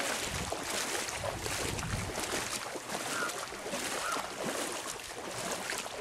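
Feet wading through shallow floodwater, sloshing and splashing with each step.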